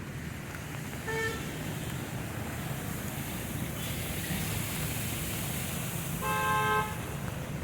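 A vehicle horn toots twice over a steady traffic rumble: a short toot about a second in and a longer one near the end.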